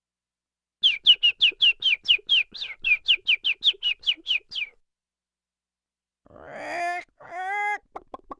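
Cartoon-style bird sound effect: a fast run of about twenty short, falling tweets, about five a second, lasting nearly four seconds. Near the end come two short pitched cries from another sound effect.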